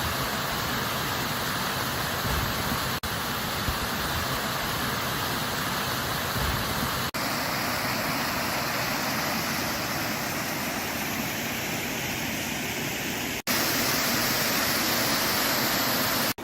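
A stream rushing over a small fall, a steady dense wash of water noise, broken by three sudden short dropouts where the footage is cut.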